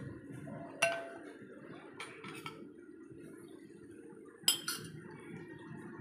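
Metal utensils and dishes clinking: one sharp ringing clink about a second in, then two quick clinks a little past halfway, over a steady low rushing noise.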